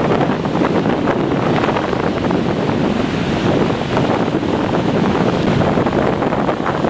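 Tropical-storm wind blowing hard across the microphone, mixed with the rush of waves and surf, a loud, steady roar of noise.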